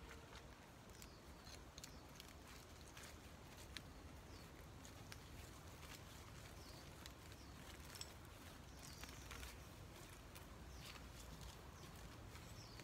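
Near silence: faint garden ambience with scattered soft clicks and a few brief, high chirps.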